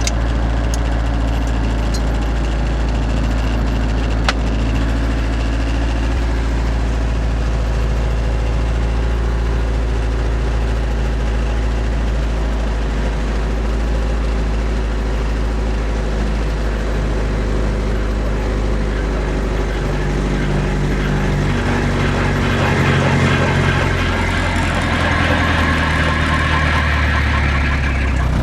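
Robinson R22 helicopter's four-cylinder Lycoming piston engine running steadily during start-up while the rotors spin up. About twenty seconds in, the engine note rises and gets a little louder.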